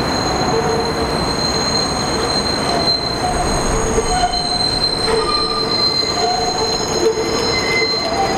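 Vintage New York City subway train's wheels squealing as it rounds a sharp curve on elevated track. A steady high squeal lasts throughout, with other squeal pitches coming and going over the rumble of the wheels.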